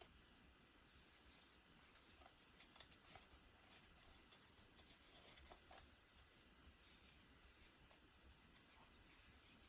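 Near silence with faint, scattered rustles and light ticks of paper and card: the pages and tags of a handmade paper journal being handled.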